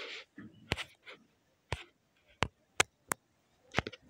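Sharp, irregular taps of a fingertip on a smartphone's touchscreen while scrolling and selecting, about six clicks spread unevenly, with a brief hiss at the start.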